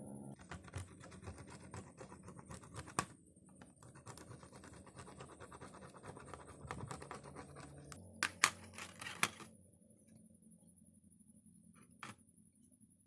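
A hand tool scraping and clicking along the edge of an Advan phone's plastic midframe, a dense run of small scratchy clicks. Sharp louder clicks stand out about three seconds in and three close together around eight to nine seconds, then it goes quieter with one more click near the end.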